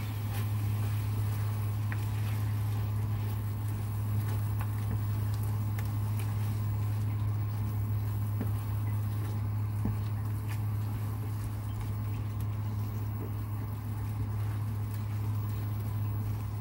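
White plastic spatula stirring and tossing stir-fried egg, mushrooms and cucumber in a nonstick wok, with scattered light scrapes and taps against the pan, over a steady low hum.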